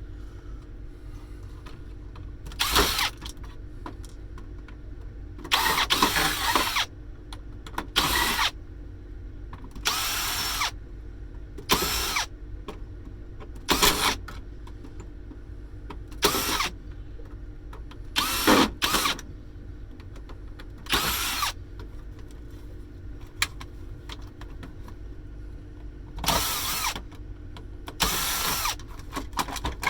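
Power drill driving out screws from a cash register casing, in about eleven short bursts with a whine that rises as the motor spins up and falls as it stops.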